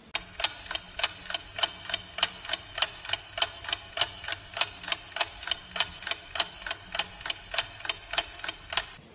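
Clock ticking sound effect, steady at about three ticks a second, stopping just before the end: the thinking-time tick while a riddle waits for its answer.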